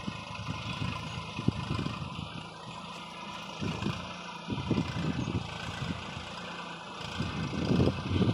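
Diesel engine of a 40 hp Sonalika tractor running under load as it hauls a trailer heaped with sugarcane, getting louder near the end as it comes closer.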